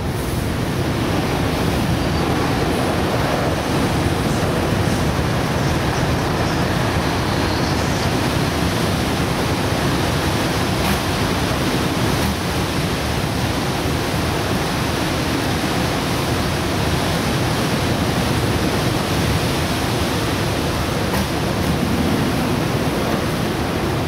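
Strong wind blowing: a loud, steady rushing noise.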